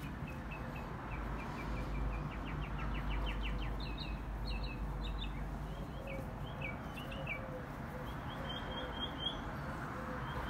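A songbird singing: a run of short chirps that speeds up into a rapid trill, followed by a string of varied notes and a few quick repeated notes near the end, over a steady low hum.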